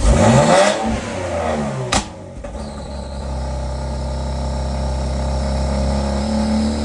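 BMW X3 M's twin-turbo 3.0-litre straight-six starting up with downpipes fitted and the catalytic converters removed: it catches with a loud rev flare that falls back over about two seconds, gives one sharp crack, then settles into a steady idle.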